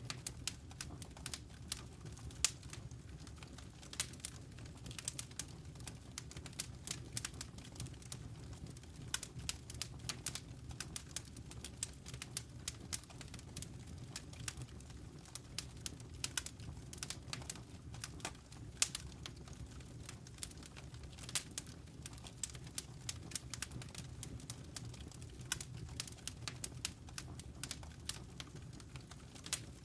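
Wood fire crackling in a fireplace: irregular sharp pops and snaps, several a second, over a steady low rumble of burning.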